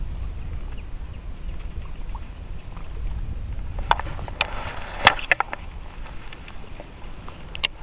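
Steady low wind rumble on the microphone. About four to five and a half seconds in comes a short cluster of sharp clicks and rustling from a baitcasting reel and a jacket sleeve being handled, with one more click near the end.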